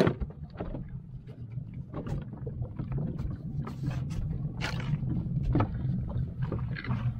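Small fishing boat's outboard motor running steadily, with scattered knocks and taps on the deck.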